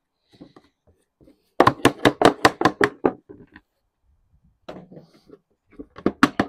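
Lead sheet being beaten and dressed on a wooden bench with a plastic lead dresser. A fast run of about nine knocks comes a couple of seconds in, then a pause, then a few scattered knocks and another quick cluster near the end.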